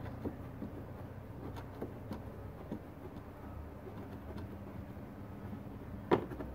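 Faint scattered clicks of hand-work on a car's wheel-arch area, with one sharper knock about six seconds in, over a low steady hum.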